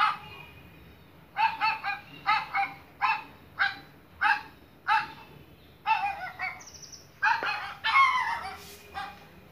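Recorded dog barks played through a phone's small speaker: a run of short barks, often in pairs, about one to two a second, thin and lacking low end.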